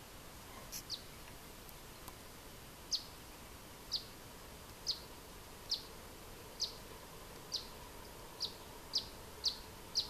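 Male Eastern Bonelli's Warbler giving single sharp call notes, each a quick downward-sliding note, about one a second and quickening to roughly two a second near the end.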